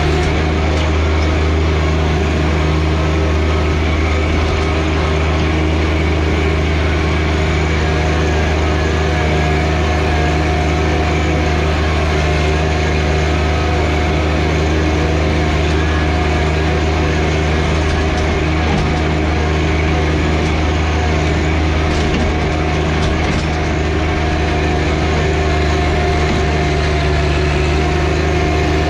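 John Deere 1025R compact tractor's three-cylinder diesel engine running at a steady, unchanging speed.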